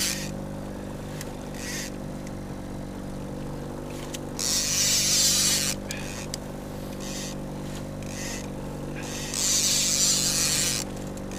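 Boat's outboard motor running steadily at trolling speed, with loud bursts of rushing hiss near the start, about four and a half seconds in and about nine and a half seconds in.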